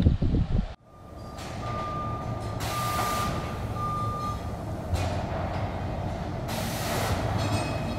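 A few loud knocks in the first second, then a steady engine rumble with a high beeping tone switching on and off three times and a few bursts of hiss.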